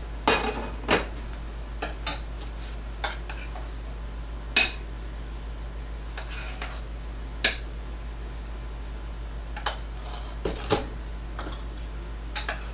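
Metal utensils clinking and scraping against pots and plates as food is dished up from pans on a stovetop: irregular sharp clinks, about one a second, over a steady low hum.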